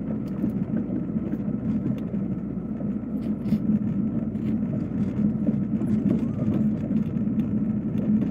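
Passenger train running, heard inside the carriage: a steady low rumble with scattered faint clicks and rattles.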